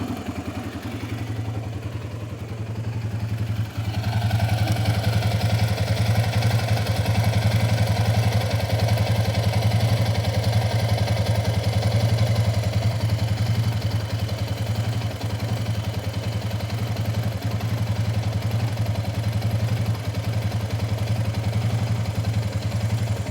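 Yamaha Raptor 700R's single-cylinder four-stroke engine idling steadily, getting louder about four seconds in.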